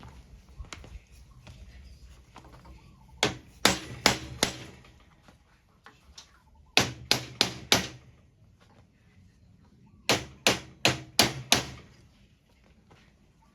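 Metal hammer blows on a copper bar, shaping it for a battery spot welder: three quick runs of four or five sharp strikes, a few seconds apart.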